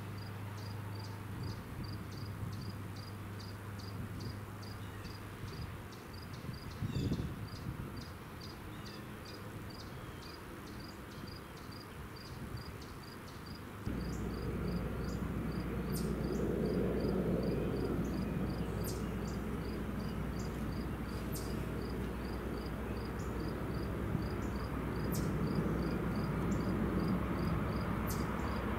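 Insects chirping steadily, about three high chirps a second, over a low rumble. The rumble steps up about halfway through and swells toward the end as an Amtrak Acela train approaches.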